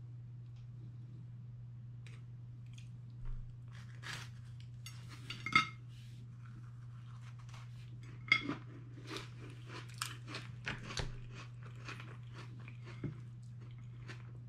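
Biting and crunchy chewing of a digestive biscuit topped with coleslaw, the crunches coming in short irregular clusters through the second half. Two sharp ringing clinks of cutlery, about five and a half and eight seconds in, are the loudest sounds, over a steady low hum.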